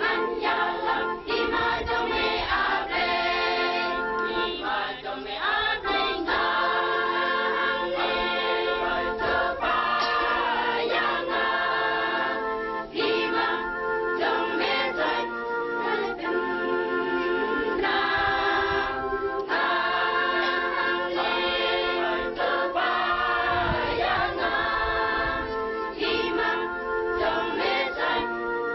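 A mixed church choir of girls' and young men's voices singing together in harmony, one continuous phrase of many voices.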